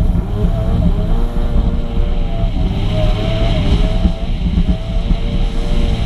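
Yamaha two-stroke personal watercraft running steadily at speed, its engine note wavering slightly, over the rush of its jet wake.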